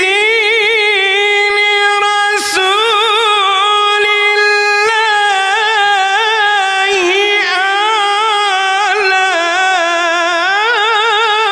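A single voice singing a long, unaccompanied melismatic line of Arabic religious chant (ibtihal), the held notes wavering with vibrato, with short breaks about two and a half and five seconds in.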